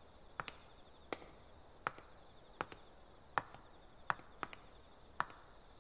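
Faint footsteps of hard-soled shoes on a paved path, a short sharp step about every three quarters of a second at a slow walk.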